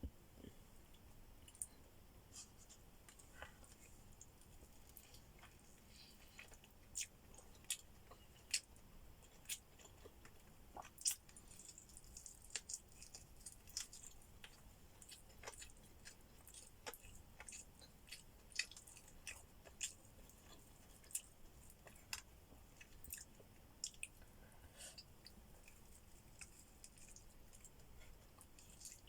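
Close-miked mukbang eating: soft, irregular mouth clicks, smacks and small crunches of chewing, a few louder ones each second or two.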